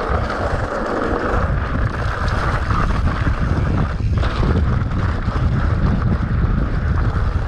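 Wind buffeting the microphone: a loud, steady low rumble with a hiss above it.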